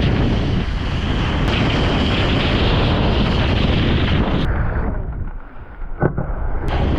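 Wind buffeting an action-camera microphone over the hiss of a wakeboard cutting through water and spray. The rush drops away about five seconds in as the board leaves the water, and a short sharp knock about six seconds in is the wakeboard landing on a metal rail.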